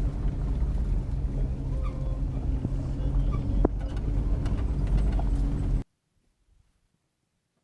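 Steady low engine or motor drone with a fixed pitch, cutting off abruptly about six seconds in, followed by near silence.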